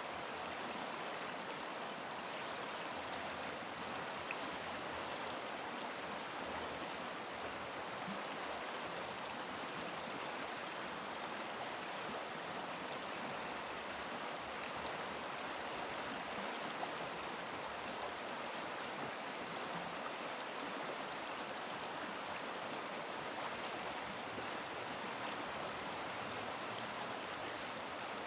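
Steady rush of a small river flowing over stones, a constant even babble with no let-up, recorded on a phone.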